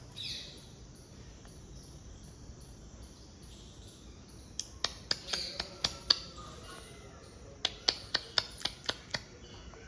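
A small bird giving short, sharp chirps in two quick runs of about half a dozen each, the first about five seconds in and the second about eight seconds in.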